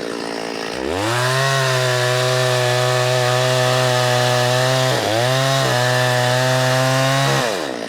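Chainsaw revving up from idle to full throttle about a second in and held there, with a brief dip in speed about five seconds in, then dropping back to idle near the end, while bucking a felled tree trunk into rounds.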